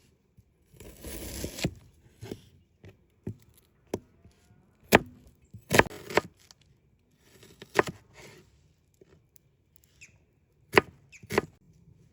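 Food-preparation sounds in a kitchen: a short rustle about a second in, then scattered sharp knocks of utensils or a knife against a hard surface, a few of them loud.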